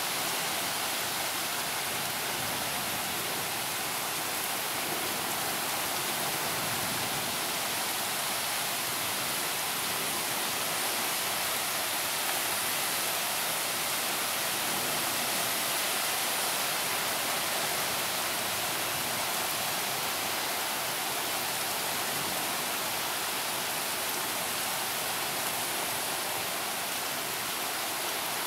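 Heavy rain falling steadily, an even hiss that holds at the same level throughout.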